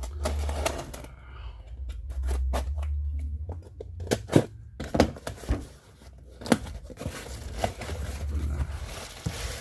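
A cardboard speaker box being opened by hand: packing tape tearing and scraping, with several sharp knocks and cardboard rustles.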